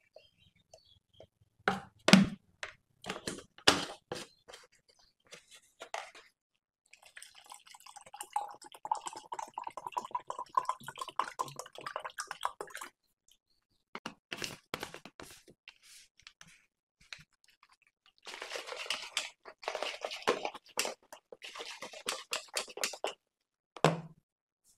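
Whey protein shake being made in a plastic shaker cup: a plastic scoop taps and knocks against the cup, then water pours into it from a large bottle for several seconds, its pitch rising slightly as the cup fills. Later the closed shaker is shaken for several seconds, the powder and water sloshing inside, and is set down with a knock.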